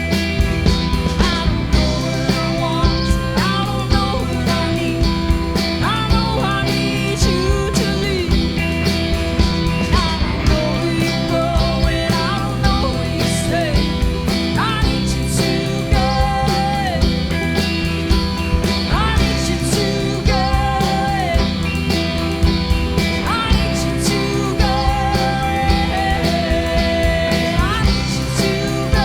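A band playing a long instrumental passage with a steady beat and a sustained low end, while a lead melody line repeatedly slides up into long held notes.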